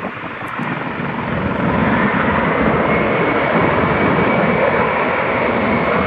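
Sikorsky S-76B helicopter hovering: steady rotor noise with the high whine of its twin turboshaft engines, growing louder about a second and a half in.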